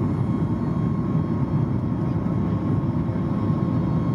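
Cabin noise of a Boeing 737 MAX climbing after takeoff, heard from a seat over the wing: the CFM LEAP-1B engines' steady low-pitched noise, with a faint steady high tone above it.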